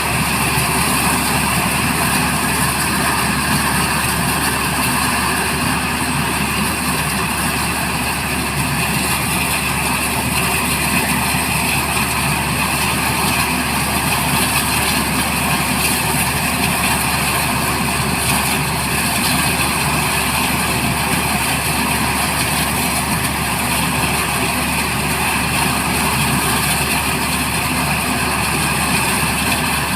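Black Hawk helicopter running steadily, a constant loud engine and rotor noise without change.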